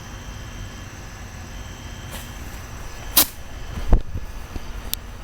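Half-lit bottle rocket being relit and going off. A sharp crack about three seconds in and a louder low thump just under a second later, then a sharp crack with a hiss right at the end as it shoots off. A steady low rumble runs underneath.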